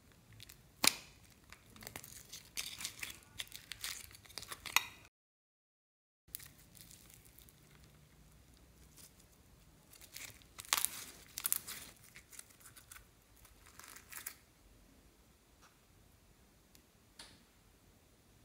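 Hands handling slime and small plastic pieces over a glass bowl: a sharp plastic click about a second in, then crackling and crinkling, a second of dead silence, and more crackling about ten to fourteen seconds in.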